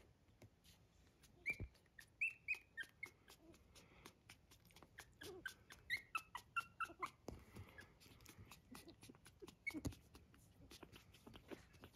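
Young puppies squeaking: a string of quiet, short, high squeaks, thickest from about a second and a half in to about seven seconds in, with one more near the end, over a scatter of small clicks.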